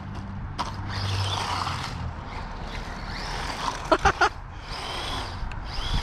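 Small RC monster truck's electric motor and gears whining as it drives, the whine rising and falling with the throttle over noise from the tyres on the ground. There are a few sharp knocks about four seconds in.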